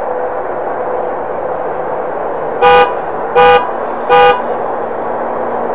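A vehicle horn honks three short times, evenly spaced about three-quarters of a second apart, over a steady background noise.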